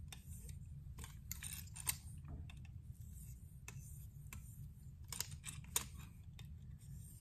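Spyderco ultra-fine ceramic stone on a KME guided sharpener drawn lightly across a knife edge in the polishing stage: faint, irregular scraping strokes and small clicks over a steady low hum.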